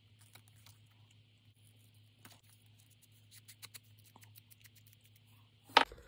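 Scissors cutting a small paper pull tab out of a printed sheet: a scatter of faint, irregular snips, with one sharp, louder click near the end.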